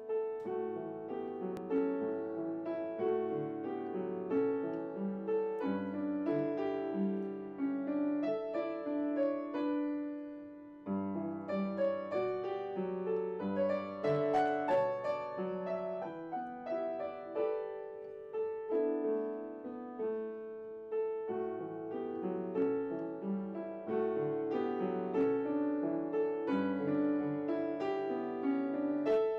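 Yamaha upright piano played solo: a song accompaniment, a flowing run of notes mostly in the middle register. One phrase dies away about eleven seconds in before the next begins.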